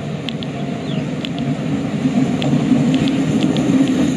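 Diesel-electric locomotive hauling a passenger train on approach, its engine rumble growing steadily louder as it nears.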